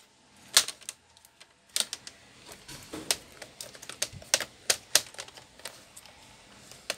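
Sharp, irregular plastic clicks, about eight over the few seconds, from the HP G6 laptop's plastic screen bezel as its snap clips are worked by hand along the display edge.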